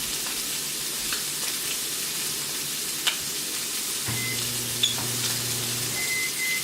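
Meat frying in a pan, a steady sizzle with a few light clicks. A low hum joins in for about two seconds in the second half.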